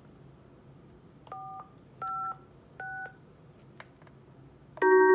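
Polycom SoundStation 2 conference phone sounding three short touch-tone beeps as the keys 4, 5 and 6 are pressed, with faint key clicks. Near the end, a loud steady tone from the phone's loudspeaker starts suddenly.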